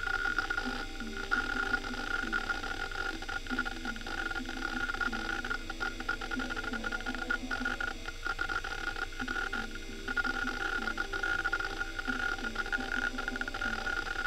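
Western Digital Caviar 21200 hard drive reading hard, its heads seeking in a rapid, irregular clicking chatter over the steady whine of the spinning drive. The drive has many bad sectors scattered across its disks.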